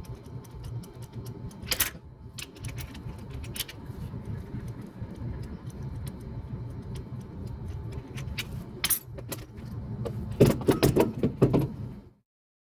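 Metal clinking and knocking over a steady low hum. Near the end comes about a second and a half of loud, rapid metallic clattering.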